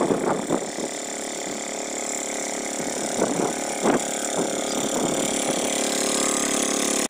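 Single-cylinder diesel engine of a two-wheel hand tractor running steadily under load as it ploughs through deep paddy mud, growing gradually louder as it comes closer.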